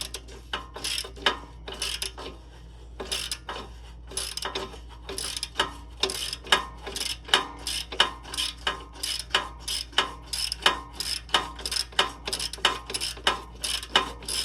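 Hand ratchet wrench clicking as a bolt is worked, irregular clicks at first, then a steady run of about two to three clicks a second.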